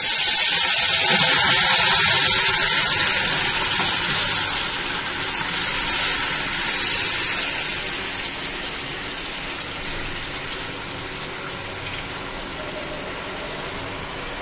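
Boiled vegetables and their cooking water poured into a kadai of hot oil: a sudden loud sizzling hiss that slowly dies down as the pan fills.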